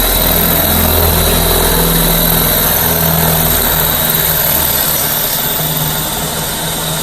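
Power drill running steadily under load, pressed into the shower wall, for the whole stretch without letting up.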